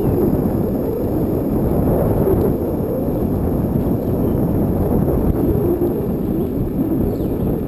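Wind buffeting the microphone of a camera on a moving bicycle: a steady, low rushing noise.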